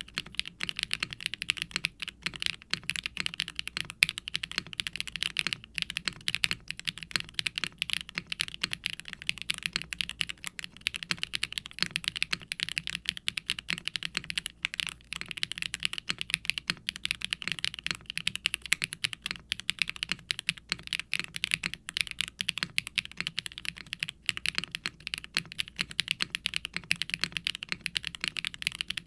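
Continuous fast typing on a custom 60% mechanical keyboard: HMX Poro linear switches bottoming out in a silicone-cased HIBI June with an FR4 plate and no dampening inside. The keystrokes give a bright, clacky sound.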